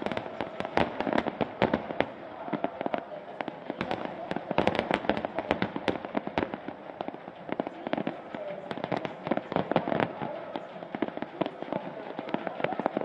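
Fireworks display: a dense, continuous run of bangs and crackling pops, with no break.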